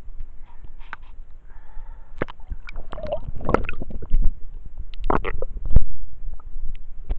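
Sea water sloshing, gurgling and splashing around a handheld waterproof camera as a snorkeler dips it in and out of the surface, with irregular knocks from handling over a low rumble. The splashes grow stronger from about two seconds in and are loudest about five to six seconds in.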